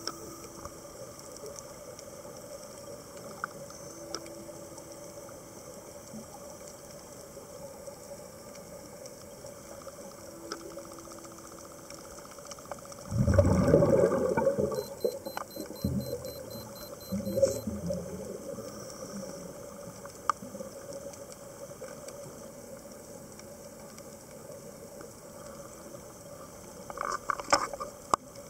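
Underwater ambience through a camera housing: a steady low hiss, with a loud rush of air bubbles about halfway lasting a couple of seconds, a smaller one soon after, and a short crackle of bubbles near the end.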